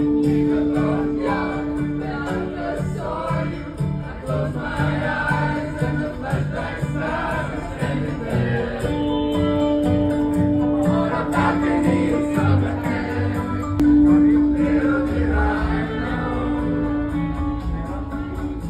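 A group singing karaoke together over a backing track with guitar and a steady beat, their voices sounding like an amateur chorus in a large room.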